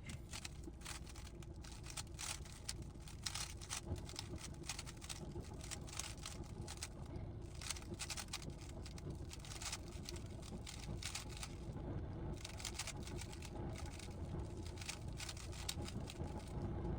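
GAN 15 speedcube being turned rapidly, a dense run of plastic clicks and clacks from its turning layers.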